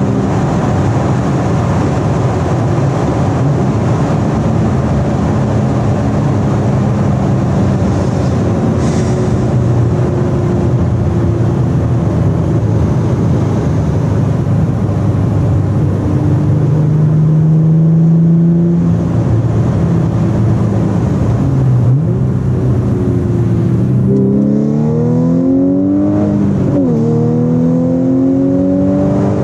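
Supercharged 3.0-litre V6 of an Audi S4 B8.5 tuned to Stage 2+ with an X-pipe and APR intake, running steadily at cruise for most of the time. Its pitch rises briefly about two-thirds through, then near the end it accelerates hard through the gears, with the pitch climbing and dropping sharply at each upshift.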